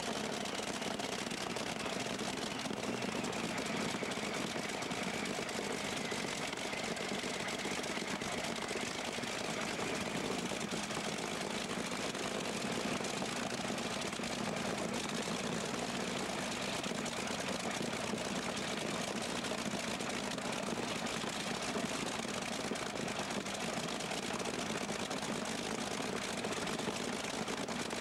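A pulling tractor's big multi-cylinder engine idling steadily, with a faint whine that falls in pitch over the first few seconds.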